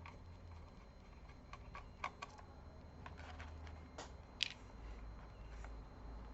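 Scattered light clicks and taps of a small screwdriver and screws against a laptop's plastic chassis as motherboard screws are removed, the sharpest click about four and a half seconds in.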